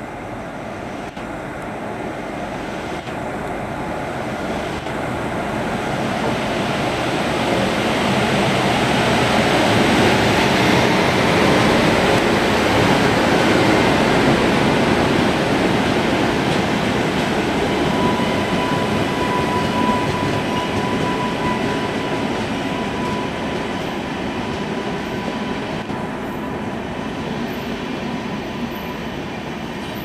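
Indian Railways passenger train hauled by a WAP7 electric locomotive rolling past along the platform line, the rumble of wheels and coaches swelling to its loudest about ten seconds in and then slowly easing off. A thin steady squeal is heard for a few seconds past the middle.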